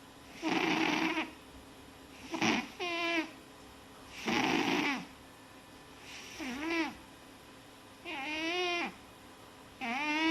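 An animal snoring in its sleep, a breath about every two seconds. Some breaths are a raspy hiss; others are a high, squeaky whistle that bends in pitch.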